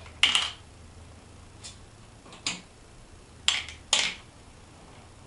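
Small metal screws dropped one at a time into a clear plastic compartment organizer, each landing with a short sharp click; about half a dozen clicks spaced out over a few seconds, the loudest right at the start and near the end.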